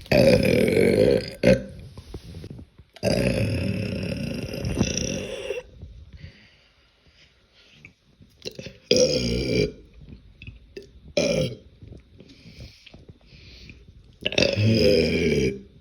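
A young woman belching deliberately, about five burps: one about a second long at the start, a longer one from about three to five and a half seconds in, a short one near nine seconds, a brief one near eleven, and another near the end.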